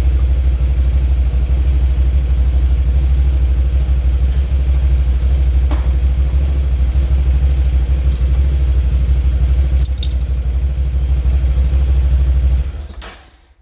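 Can-Am Outlander ATV engine idling steadily, then shut off near the end, the sound dying away quickly.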